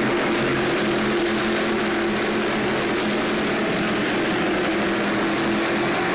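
A field of dirt modified race cars running at speed around the track, their V8 engines making a loud, steady drone.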